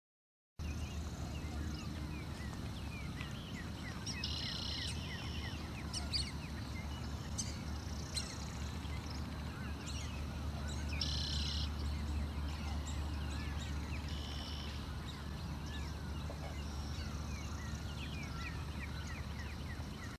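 Wetland ambience: many birds chirping and calling over a steady low rumble. Two louder, harsher calls come about four seconds and eleven seconds in.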